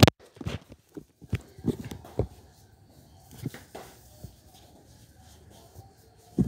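Handling noise: soft taps, knocks and rustles as plush toys are moved about close to the microphone, a cluster in the first couple of seconds and a few more about three and a half seconds in.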